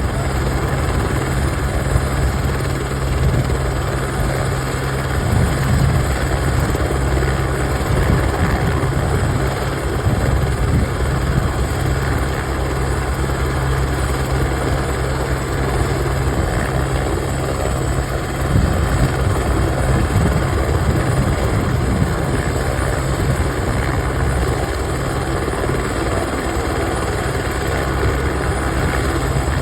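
Helicopter running steadily: a dense low rotor and engine drone with a thin high whine above it.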